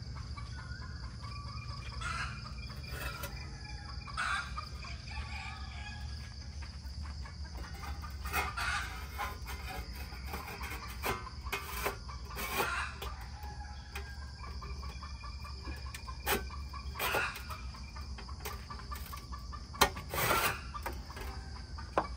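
A hen clucking in short calls on and off, with a steady high insect drone underneath.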